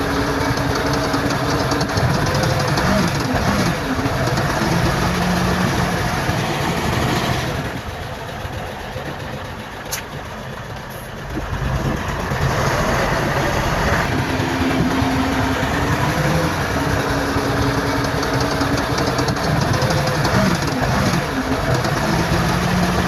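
Diesel engines of heavy earthmoving machinery, a bulldozer and dump trucks, running under load, their pitch rising and falling as they work. It goes quieter for a few seconds in the middle, with a single sharp click.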